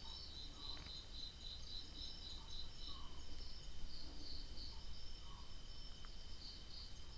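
Crickets chirping in a quick even pulse, about four chirps a second, over a steady high insect trill; the chirps thin out about halfway through.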